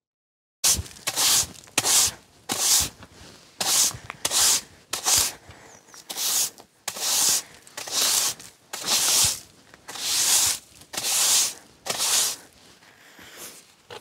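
Snow being cleared from a wooden deck with a long-handled tool: a steady run of scraping strokes, a little faster than one a second, starting just under a second in and stopping about twelve seconds in.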